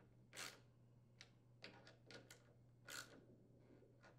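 Faint, irregular clicks and scrapes of a hand-turned socket threading and tightening nuts on mounting posts, about eight small strokes with pauses between them.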